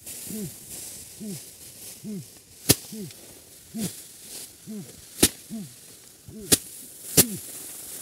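Rice sheaves being threshed by hand: sharp thwacks, five at uneven gaps of about a second, over the rustle of dry straw. A low note that rises and falls repeats about once a second underneath.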